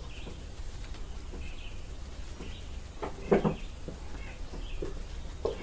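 Small birds chirping, with one short, louder animal call about three seconds in and a smaller one near the end, over a low steady hum.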